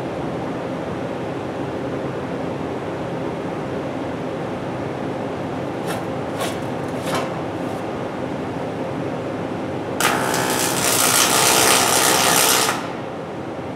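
Pulse-on-pulse MIG welding arc on thin aluminum, starting about two-thirds of the way in and running for under three seconds as a loud, even buzz before it stops suddenly. Before it there is a steady background hum and a few light clicks.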